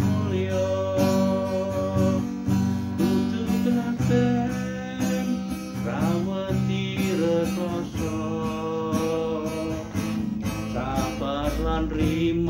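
Acoustic guitar strummed in a steady rhythm, with a man's singing voice over it in places.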